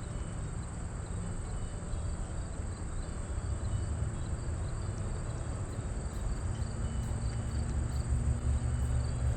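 Insects calling in a steady high-pitched drone with faint rapid ticking, over a low rumble that grows slightly louder toward the end.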